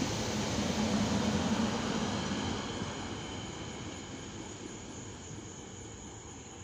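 SEPTA Silverliner IV electric multiple-unit train running away down the line, its wheels on the rails rumbling loudest about a second or two in, then fading steadily as it recedes.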